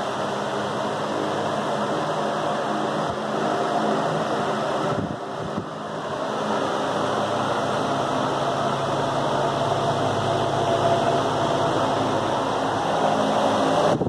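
Loren Sid Turbo 60 wall fan (60 cm, 200 W copper motor) running on medium speed. It gives a steady rush of air over a low motor hum, which dips briefly about five seconds in.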